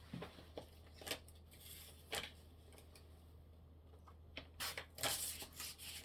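Paper scraps being handled and cut with scissors: scattered short snips and rustles, with a busier cluster about four and a half to five and a half seconds in.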